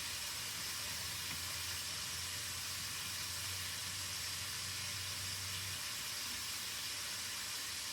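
Chicken pieces frying in a pan, giving a steady sizzle, with a low hum underneath that stops about six seconds in.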